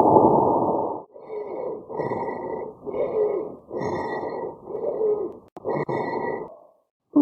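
Recorded abnormal lung sounds heard through a stethoscope. A loud rushing breath sound fills the first second, then come six short noisy breath sounds, about one a second, each with a faint high squeak in it.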